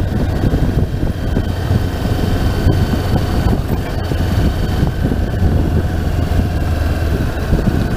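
Honda CB500X motorcycle's parallel-twin engine running at a steady cruising speed on a gravel road, with steady road noise and no change in revs.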